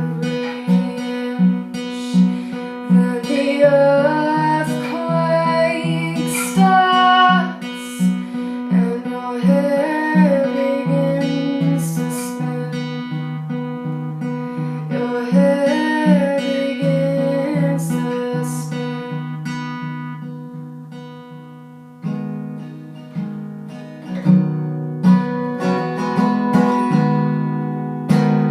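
Acoustic guitar played in a steady repeating picked pattern, with a singing voice carrying a wavering melody over it in phrases. Near the end the playing fades down briefly, then the guitar comes back in strongly.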